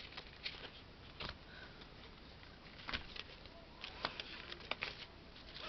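Faint handling of scraps of card: a few light taps and rustles as pieces of card are picked up and sorted through.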